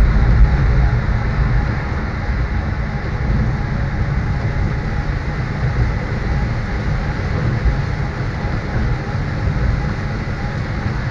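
Tram running, heard from inside the driver's cab in heavy rain: a steady low rumble with a hiss of rain and water over it.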